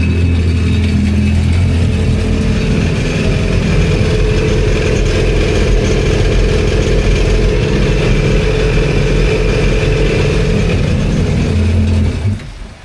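Supercharged four-stroke engine of a 2016 Yamaha FZS jet ski, fitted with a RIVA free-flow exhaust and aftermarket air intake, running steadily out of the water, then shut off about twelve seconds in.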